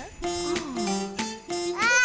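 Children's song music between verses: short instrumental notes, with a falling, sliding note about halfway through.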